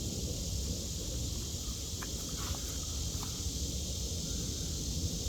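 Steady outdoor background of a high, even insect-like hiss over a low rumble, with a few light clicks in the middle.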